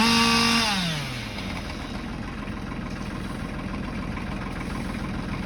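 Chainsaw at full throttle, dipping briefly, then released about a second in so the pitch falls and it settles to a steady idle.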